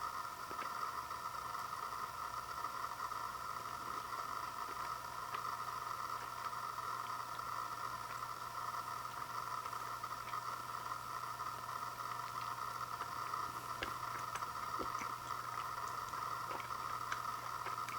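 Steady background hiss with a low electrical hum, and a few faint soft clicks.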